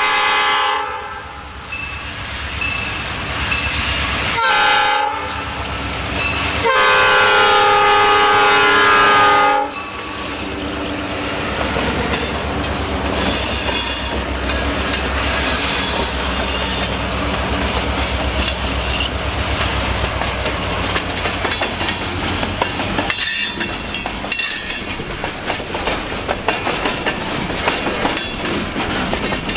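Diesel locomotive horn blowing for a grade crossing: one blast ends about a second in, a short blast comes at about four and a half seconds, and a long blast runs from about seven to nine and a half seconds. The freight train then rolls past with steady wheel rumble and clickety-clack over the rail joints.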